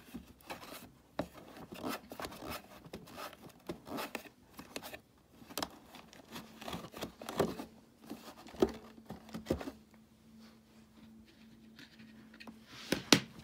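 Hands rubbing and handling the plastic body of an old Eureka Victory upright vacuum, with scattered scrapes, clicks and small knocks and a sharper knock near the end. A faint steady hum comes in about halfway through.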